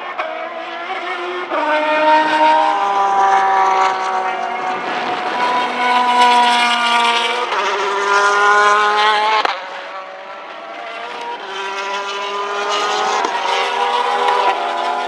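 GT1 and GT2 race cars' engines at high revs as they pass at speed, several engines overlapping, the pitch stepping up and down with gear changes. The sound dips briefly about ten seconds in, then builds again.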